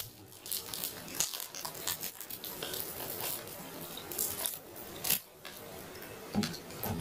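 Roast chicken being eaten close to the microphone: irregular crisp crackles and crunches, with a few louder smacks.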